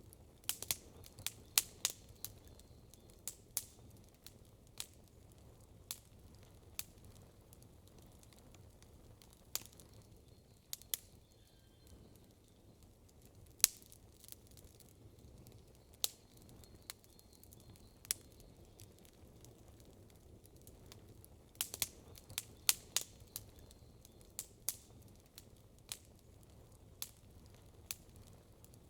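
Wood campfire crackling: sharp, irregular pops and snaps, coming in quick clusters in the first two seconds and again about twenty-two seconds in, over a faint low rumble.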